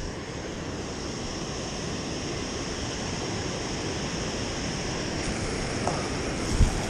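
Water rushing steadily through a river spillway: an even, unbroken roar. A short low thump near the end.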